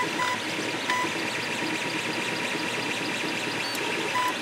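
3D printer at work: its stepper motors whine in short, pitched bursts as the print head changes direction, over the steady whir of the hotend cooling fan. In the middle the moves come quicker and the whine turns into a fast buzzing chatter.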